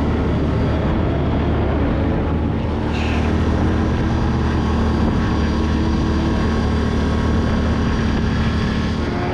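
A motor vehicle's engine running at a steady pace, with a continuous low drone and a noisy rush over it.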